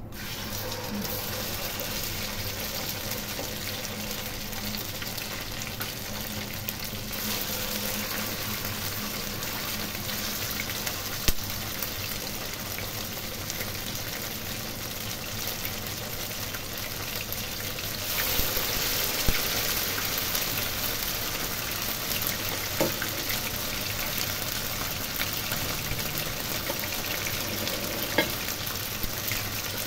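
Marinated chicken steaks sizzling in hot oil in a wok, a dense steady frying hiss that grows louder about seven seconds in and again about eighteen seconds in. A few sharp ticks stand out over it.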